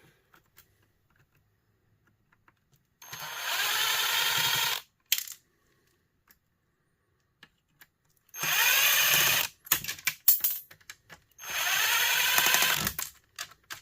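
Electric drill-driver running in three bursts of about a second and a half each, its motor whine rising as each starts, backing screws out of a plastic heater housing. Light clicks of screws and plastic being handled come between the bursts.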